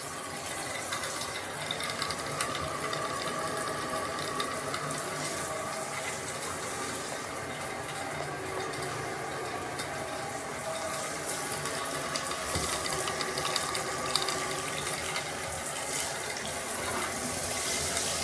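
Tub spout water running through a pet shower hose attachment: a steady rush of water with a faint steady whine and small crackles throughout.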